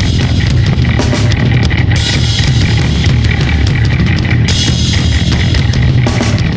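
Loud, distorted grindcore/noise music: heavy guitar and bass over pounding drums, with cymbals washing in and out.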